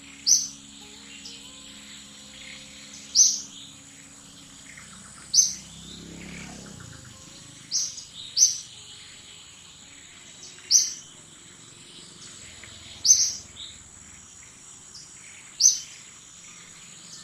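A bird calling with short, sharp high chirps, about eight in all, each a quick falling note, repeating every two to three seconds. Under them runs a steady high whine like insects.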